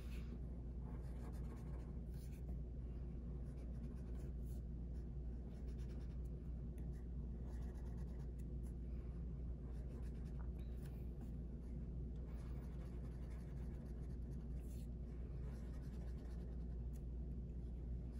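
Black marker drawing spots on folded paper: faint scratchy strokes over a steady low hum.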